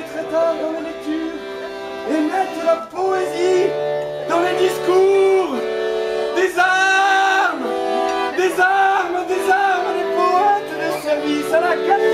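Piano accordion playing held chords and a melody, with a man singing over it.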